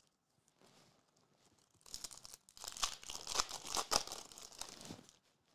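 Foil wrapper of a Topps Chrome trading-card pack being torn open and crinkled by hand: a crackling tear that starts about two seconds in and lasts about three seconds.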